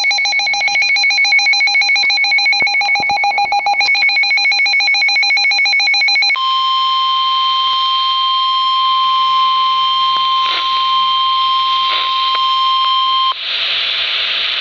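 Rapid, evenly pulsed electronic alert beeping for about six seconds. It switches to a steady, unbroken weather-radio warning alarm tone near 1050 Hz that lasts about seven seconds, cuts off sharply, and gives way to radio hiss near the end.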